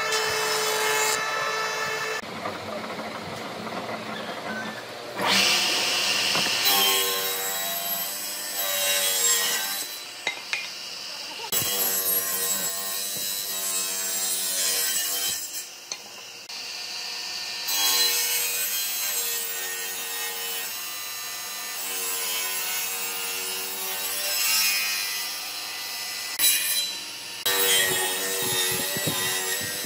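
Woodworking tool cutting or sanding wood in a series of short runs, each a second or two of steady whine mixed with rasping against the wood. There are a few sharp knocks near the end.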